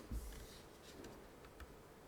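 A few faint, widely spaced keystrokes on a Karina 65 mechanical keyboard with Cherry Hyperglide Black linear switches and GMK Darling keycaps. The first, just after the start, is the loudest, a soft low knock; the rest are light ticks in a lull in the typing.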